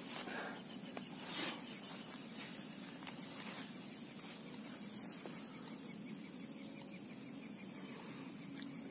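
Quiet outdoor ambience with a steady high insect drone of crickets, and two short rustles in the first second and a half.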